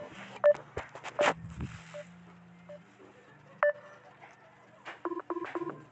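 Smartphone video call cutting out: a few scattered clicks and knocks, one short tone, then near the end four quick beeps of the call-ended signal as the call drops.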